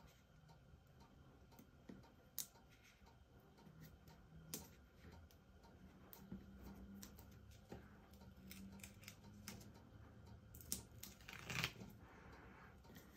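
Faint handling of paper cardstock and foam adhesive strips: scattered small clicks and taps, with a short rustle near the end.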